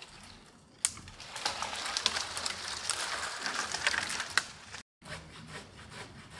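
Dry wood and dead branches crackling, snapping and scraping, with one sharp snap about a second in and a dense run of crackles after it; the sound breaks off briefly near the end, then fainter crackles follow.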